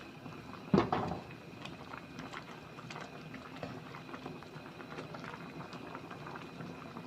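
Pot of beef red curry in coconut milk simmering, bubbling steadily with many small pops. A single sharp knock about a second in.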